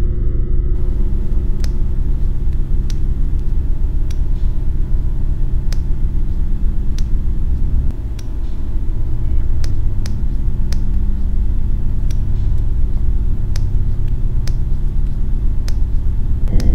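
Loud, steady low rumbling drone with faint sharp clicks about once a second; it dips briefly about eight seconds in.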